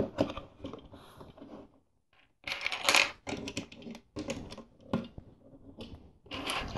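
Plastic LEGO pieces clicking and clattering as they are handled and pressed onto a build, in several clusters of small clicks, the busiest about three seconds in.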